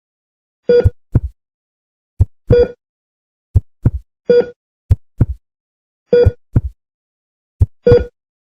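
A heartbeat sound effect: a slow double lub-dub thump about every second and a half, layered with the short beep of a heart-rate monitor about every two seconds. The beeps and the heartbeats are not in step.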